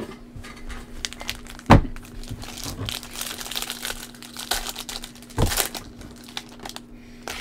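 Foil wrapper of a Panini Mosaic football card pack being torn open and crinkled as the cards are pulled out. Two sharp knocks stand out, one about two seconds in and one about five and a half seconds in.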